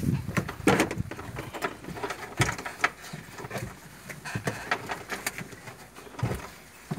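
Hands pulling plastic-wrapped packages out of a compartment in a car floor: irregular crinkling and rustling of plastic, with scattered clicks and a few dull knocks.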